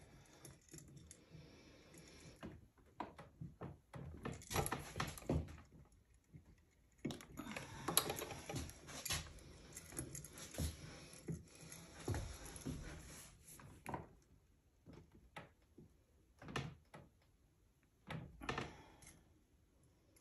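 Silver curb chain of heavy-gauge wire clinking and grating as it is twisted by hand in a bench vise with locking pliers. The sound is irregular metal clicks and rattles, with longer scraping stretches at a few points.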